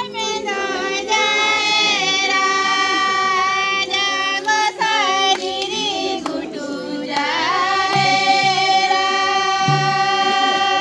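A group of women singing a Santali Baha festival song together, holding long high notes and gliding slowly between them; about two-thirds of the way through the phrase breaks briefly and the voices slide back up into the next long note.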